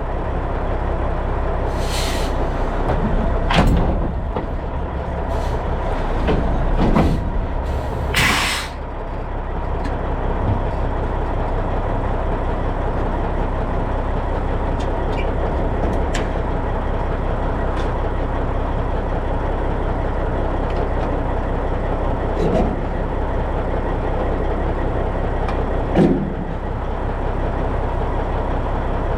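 Farm truck's engine idling steadily, with a few short hisses in the first nine seconds or so.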